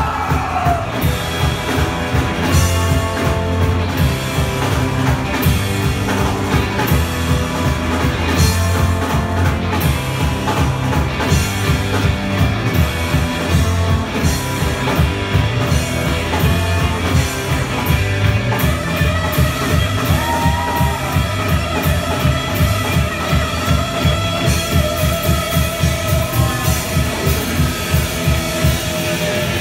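Live rock band playing amplified electric guitars and a drum kit, with a steady beat.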